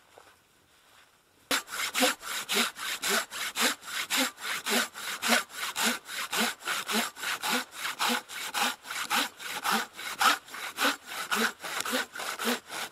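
Hand saw cutting through wood with quick, even back-and-forth strokes, about three a second, starting about a second and a half in.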